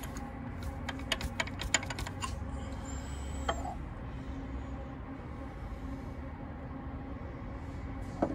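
A quick run of light clicks, about eight in the first two seconds and one more a little later, over a steady low hum.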